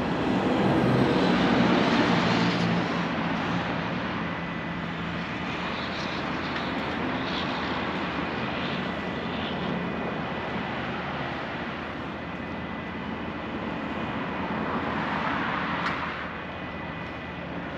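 Heavy rotator tow trucks' engines running steadily while winching a semi out of a ravine, with vehicles passing on the highway: a swell of traffic noise in the first couple of seconds and another near the end.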